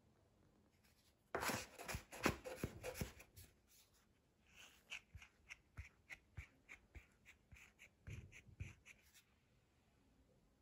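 Plastic bench scraper working biscuit dough on a wooden board. First comes a cluster of knocks and scrapes, then a run of short scrapes about three a second, with a few soft thumps near the end.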